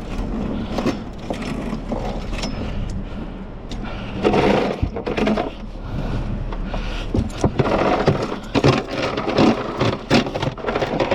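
A small boat engine running steadily with a low hum, with irregular clattering knocks over it throughout.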